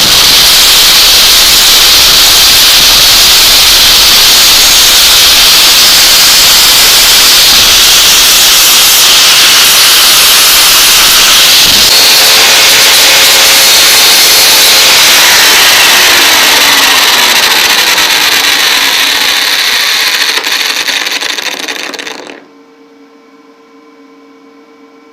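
Power grinder grinding metal: a loud, steady, hissing grind that dies away with a falling whine as the tool winds down, about three quarters of the way through.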